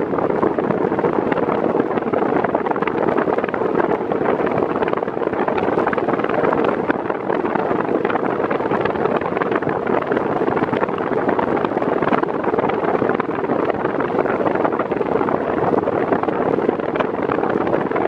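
Arno Xtreme Force Breeze VB40 40 cm electric fan running at its medium speed setting: a steady rush of air from the blades with a constant hum, the airflow buffeting the microphone in front of the grille.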